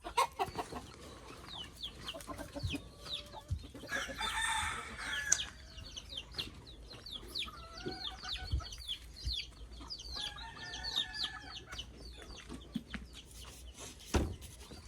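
Chickens: a rooster crows about four seconds in and again around ten seconds in, over clucking and a steady run of short, high chick peeps.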